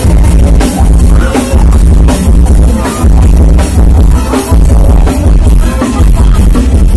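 Very loud music with a pounding bass beat blasting from a Thai rot hae, a truck-mounted parade sound system, heard close beside its speaker stacks.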